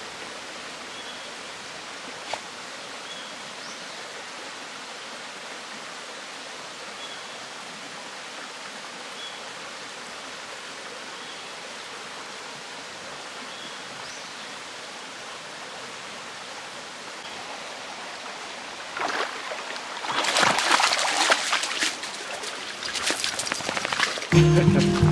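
Mountain stream running steadily over rocks, with a faint short chirp repeating every second or two. About 19 seconds in, louder splashing in the water starts and goes on, and music comes in near the end.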